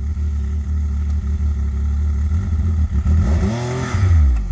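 Snowmobile engine idling steadily, then revving up once and dropping back about three seconds in.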